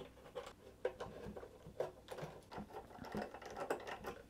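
Screwdriver working small screws out of a metal equipment case: a run of quiet, irregular clicks and ticks as the screws turn and the case is handled.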